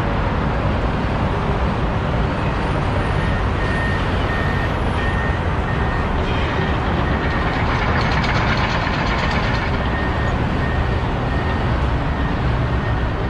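Steady rumble of road traffic and heavy vehicles, with a reversing alarm beeping about twice a second in two stretches.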